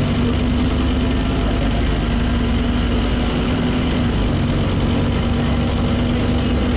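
Scania OmniCity N230UD double-decker bus's nine-litre five-cylinder diesel engine running at a steady pitch as the bus travels, heard from inside the lower-deck saloon as a constant low hum.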